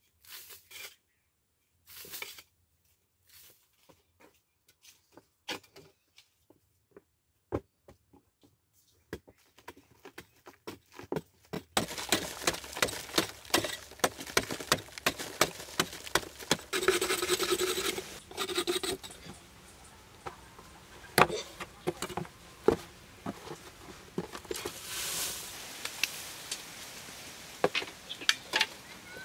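Long-handled hoe chopping into and scraping packed dry earth, irregular strikes with loose soil falling away. The strikes are sparse at first and come more often from about twelve seconds in.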